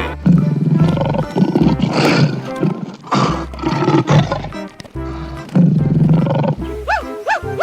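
A big cat roaring and growling, several calls in a row, over a children's music track with a steady bass line. Near the end a different animal's call takes over: quick, repeated rising-and-falling chirps.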